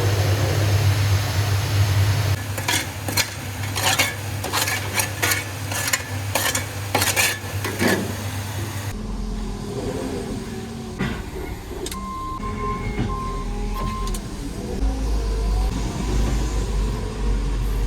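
An engine running steadily, with a quick run of sharp knocks over several seconds. About halfway through the sound changes abruptly to a deeper engine rumble with a few faint beeps.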